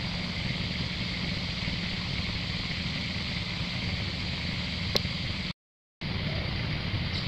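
Steady background noise: a low rumble under a higher hiss. There is a short sharp click about five seconds in, and a half-second break of total silence just after it.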